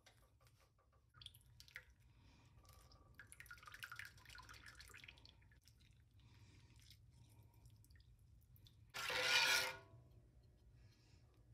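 Faint bubbling and fizzing of a pan sauce simmering in a cast iron skillet, with a loud burst of scraping and sloshing about nine seconds in as a metal slotted spatula stirs through it.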